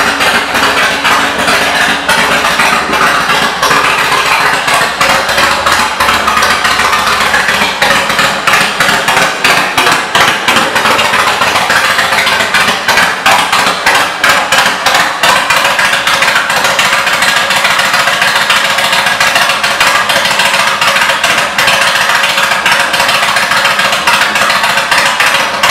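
2007 Honda VTX 1300C's V-twin running through its aftermarket exhaust: a loud, steady stream of rapid pulses that holds at much the same level throughout.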